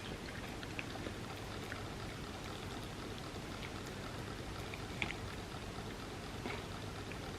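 A person eating a soft chocolate trifle: small, wet mouth clicks from chewing, scattered and irregular, with one sharper click about five seconds in, over a steady background hiss.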